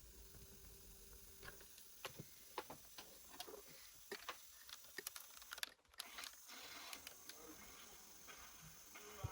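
Faint, irregular light clicks and taps of small parts of a cassette player being handled and worked on by hand.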